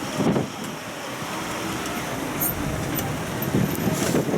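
Steady vehicle and road noise heard from aboard an open tourist road train on the move, with two brief louder surges, one just after the start and one near the end.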